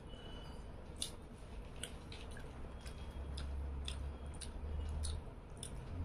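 Close-up eating sounds: short, wet clicks of chewing and of fingers picking through fish and rice on a plate, a dozen or so scattered through. A low steady hum runs underneath.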